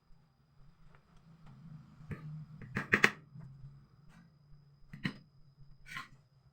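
A few separate sharp knocks and taps, as of wooden parts and tools being handled during drawer building, the loudest about three seconds in, over a faint low hum.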